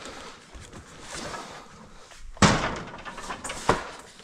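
Household items being handled and moved around, with a sharp knock a little over halfway through and a second, smaller knock about a second later.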